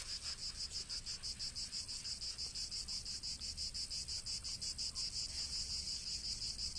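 Cricket chirping in a fast, even pulse, about seven high-pitched chirps a second.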